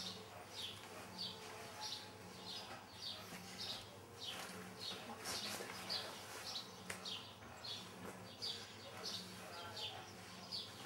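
A small bird chirping over and over, short high chirps about twice a second, with a faint low hum underneath.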